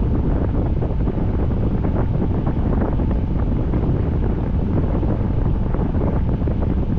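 Steady rain and wind, with wind rumbling on the microphone.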